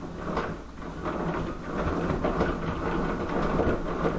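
Height-adjustment crank of a rolling workbench being turned by hand, its gear mechanism giving a continuous rapid mechanical rattle as the top is raised.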